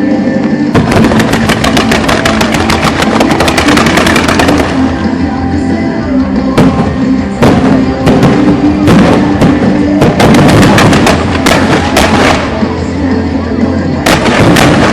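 Fireworks going off over loud background music. A dense, rapid volley of bangs starts about a second in and runs for several seconds, then single bangs and small clusters follow for the rest of the time.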